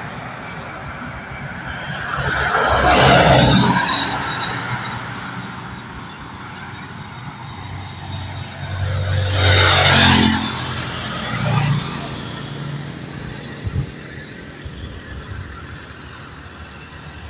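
Road traffic on a paved road: two vehicles pass close by, one about three seconds in and another near ten seconds, each sound rising and fading away, with a low hum of more distant traffic in between.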